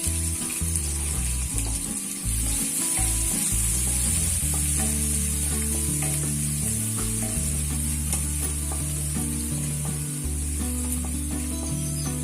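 Chopped onions sizzling and being stirred in hot oil with a mustard-seed, curry-leaf and dal tempering in a pan; the frying hiss is strongest in the first few seconds. Soft background music with sustained low notes plays underneath.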